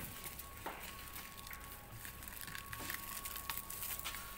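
Faint clicks and rustling as a corrugated plastic air-intake hose is handled and fitted to a screw compressor's intake port, over a steady low hum. A faint steady high tone comes in about a second in.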